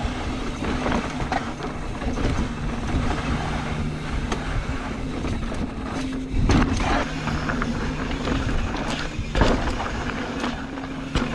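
Mountain bike rolling fast down a dirt trail: tyres rumbling over dirt and rocks with wind on the helmet camera and a steady buzz that comes and goes. There are two sharp jolts, about six and a half and nine and a half seconds in.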